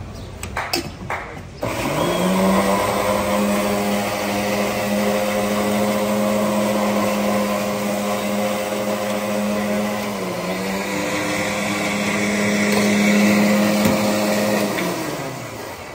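Electric blender with a steel jug blending lassi. After a few knocks at the start, the motor spins up about a second and a half in and runs at a steady hum for about thirteen seconds, dipping briefly around ten seconds in, then winds down near the end.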